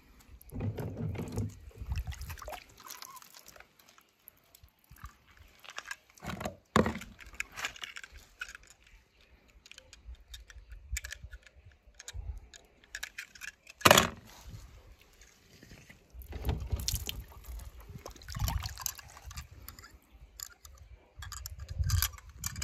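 Small toy cars being handled in water: irregular clattering and light splashing, with one sharp knock about two-thirds of the way through.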